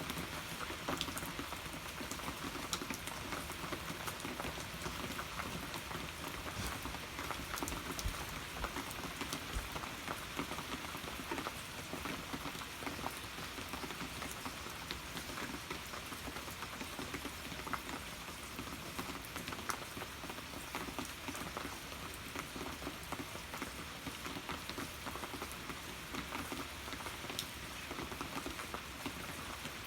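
Steady rain falling, with many small drops pattering and ticking on a surface.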